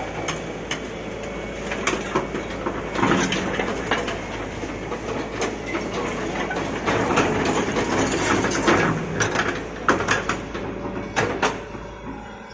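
Kato excavator at work: its diesel engine running with a steady low hum, over which come many irregular clanks and knocks with scraping noise, busiest in the middle and easing off near the end.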